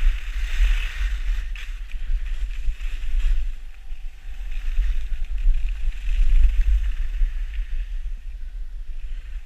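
Wind buffeting the microphone of a helmet or body camera on a skier going fast downhill, over the hiss of skis sliding and carving on packed snow that swells and fades with the turns.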